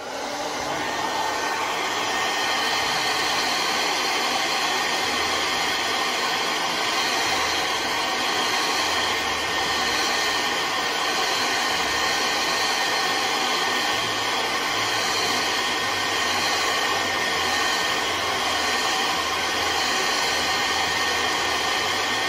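Handheld hair dryer switching on and then blowing steadily, a rush of air with a faint high whine in it.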